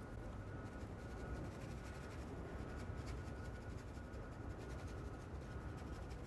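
Quiet room tone: a steady low rumble and a faint high tone, with a few faint light taps and scratches as a small brush dabs gold leaf onto the canvas.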